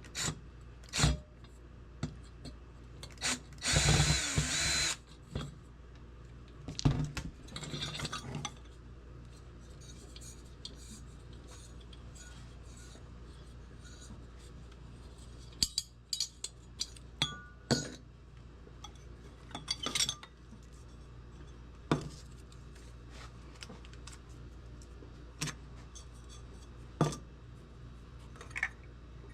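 Clicks and knocks of an old metal-and-glass lantern being handled and worked on, with a loud harsh burst about a second long near four seconds in and a rougher rattling patch a few seconds later.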